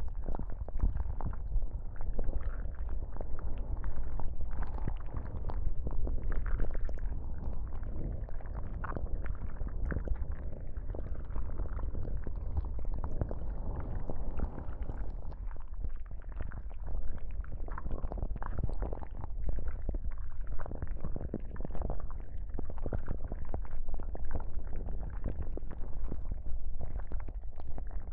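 Binaural ASMR tentacle sound effects: squelching and rubbing close against the microphone, a continuous dense crackle of many small clicks over a low rumble.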